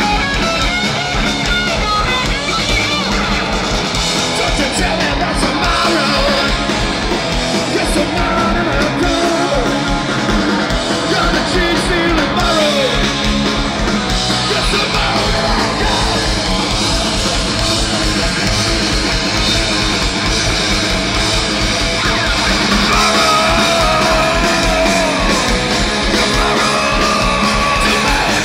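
Punk rock band playing live: electric guitars, bass and drums with shouted and sung vocals, loud and steady, getting a little louder about two-thirds of the way through.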